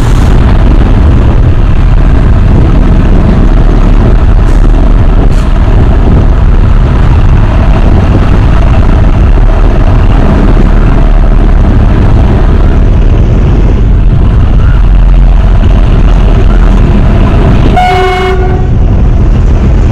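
Narrow-gauge train led by a ZDM3 diesel locomotive on the move: a loud, heavy low rumble throughout, with one short horn blast near the end.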